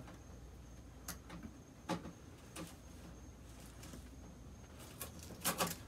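Faint, scattered clicks and scratches of fingers picking at and peeling pieces off the plastic front of a window air conditioner, over a low steady hum.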